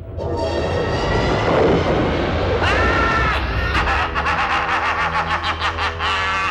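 A cartoon villain's sinister laugh, a long run of quick 'ha-ha' repeats that cuts off abruptly. It is set over a rushing sound effect with a low drone, which swells up in the first couple of seconds.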